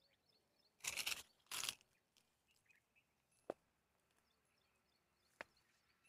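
Two crunching footsteps on dry, stony soil about half a second apart, followed by two single sharp clicks, with faint bird chirps.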